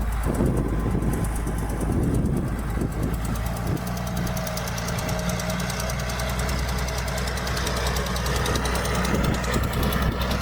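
Diesel engine of heavy earthmoving equipment running steadily under load.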